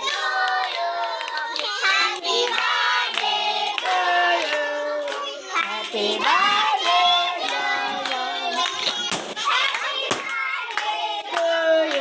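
A group of people singing together and clapping along, with several voices overlapping on held notes and sharp hand claps throughout.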